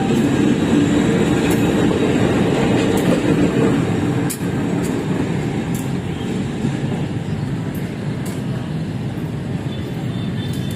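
KAI CC 203 diesel-electric locomotive running light (no carriages), its diesel engine running with scattered clicks and clanks from the wheels on the track. The sound slowly fades as it moves away.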